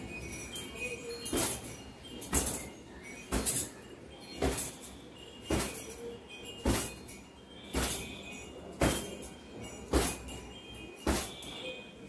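Long wet hair being beaten and flapped with a towel to dry it: a rhythmic swish and slap of cloth and hair, about once a second.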